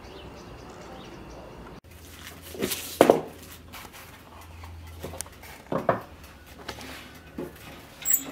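Sharp clanks and knocks of kitchen handling at a countertop electric oven, metal and dishware knocking against each other. The loudest knock comes about three seconds in, with a few lighter ones after it.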